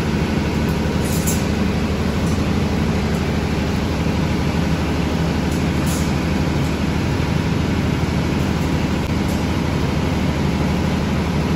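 Steady low rumble, with a faint metallic clink about six seconds in.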